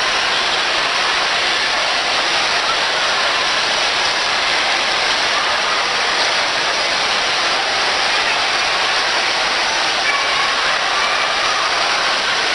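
Steady background noise of a crowded shopping mall: a dense, even crowd murmur and hiss with no single clear source, and faint voices in it.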